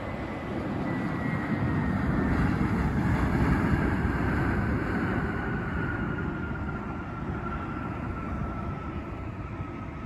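Airbus A320neo jet engines on the landing roll: a loud rumble that builds over the first few seconds and then eases, with a thin whine that falls slowly in pitch as the airliner passes and moves away.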